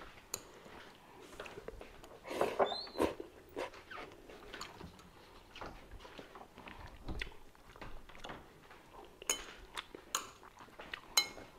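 Quiet eating sounds: chewing a mouthful of spaghetti, with scattered light clicks of a metal fork on a plate, a few sharper ones near the end.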